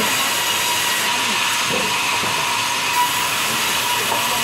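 Sawmill band saw running steadily: an even, hissing whir with a faint steady whine.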